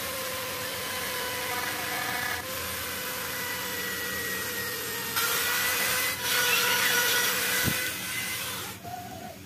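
A KOVA handheld rotary tool running at steady speed, its bit cutting a circular hole through a thin white plastic sheet: a steady motor whine over rasping cutting noise. It gets louder about five seconds in and stops shortly before the end.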